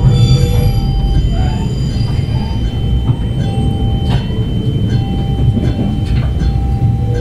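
A Capital MetroRail Stadler GTW diesel multiple unit in motion, heard from inside the car: a steady low rumble of the engine and wheels on the track. A held ringing tone fades out during the first second or two as the train passes a grade crossing.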